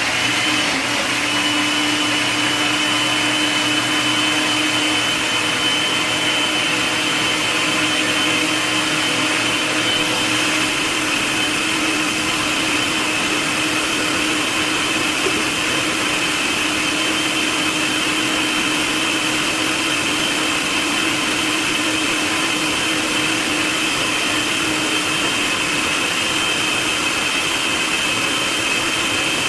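Blender running steadily with a loud motor whine, blending frozen bananas, frozen blueberries, oats and nuts into a smoothie.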